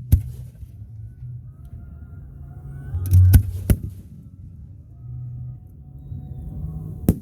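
Fireworks going off: a sharp bang just after the start, a deep boom with two sharp cracks about three seconds in, and another sharp bang near the end, over a low rumble.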